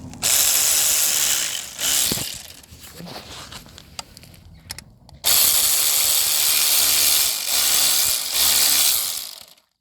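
Handheld power gun running the 8 mm bolts of a clutch release bearing in bursts: a long burst near the start, a short one about two seconds in, then a longer run from about five seconds in with two brief breaks.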